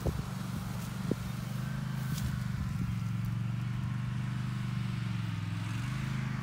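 Engine of a Solo by AL-KO T22-110.0 HDH-A V2 ride-on lawn tractor running steadily under load as it mows through long, unmown grass.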